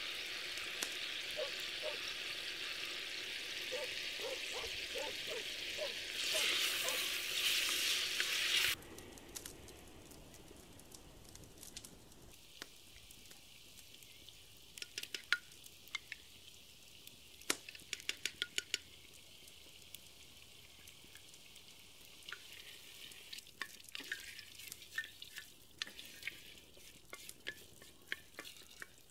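Food sizzling and popping in hot oil in a pot, louder for a few seconds before it cuts off about nine seconds in. After that, quieter sharp clicks and taps of a wooden spoon scooping tomato paste from a ceramic bowl and stirring it through peppers in the pot.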